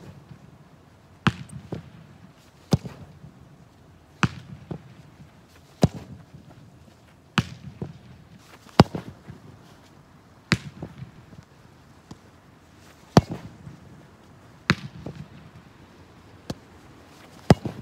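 A football being kicked over and over on artificial turf: a sharp smack roughly every one and a half seconds, each followed by a few fainter knocks as the ball strikes the kick-target board and bounces.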